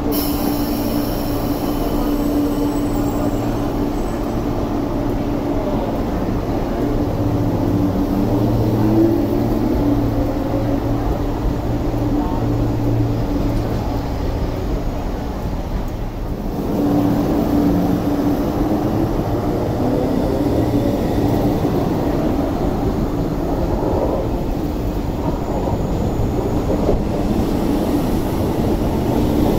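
MTR East Rail Line electric multiple-unit trains at the platform: a steady electrical hum, with motor whines that glide up and down in pitch as the trains move.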